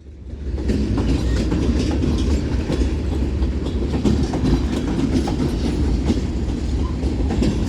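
BNSF manifest freight train rolling past: a steady rumble of steel wheels on rail with repeated clicking over the rail joints, swelling up in the first second.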